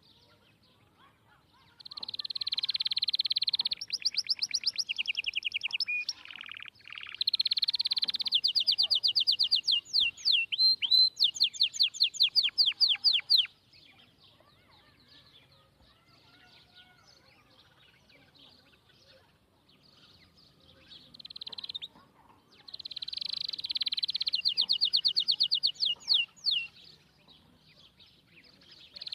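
A small songbird singing in three bouts of fast, high trills and chirps, with a long quiet stretch between the second and third.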